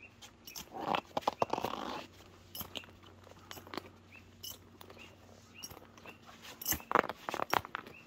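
Footsteps crunching and scuffing on snow-dusted stone steps, in irregular clusters of sharp crunches, the densest about a second in and again near the end.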